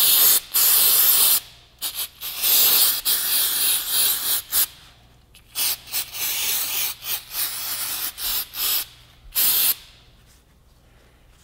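Aerosol brake cleaner hissing onto a motorcycle's front brake caliper to clean the caliper pistons: one long spray at the start, then a string of short squirts, quiet near the end.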